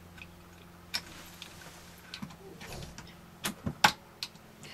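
Scattered light clicks and taps of small plastic parts and tiny screws being handled and fitted into a plastic toy kit housing by hand, with a quick cluster of sharper clicks about three and a half seconds in.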